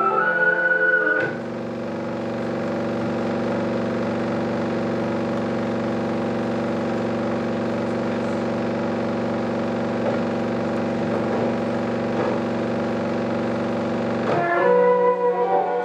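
A steady low drone held on one unchanging pitch, coming from the 16mm film's soundtrack. It starts abruptly about a second in and cuts off suddenly near the end, between passages of music.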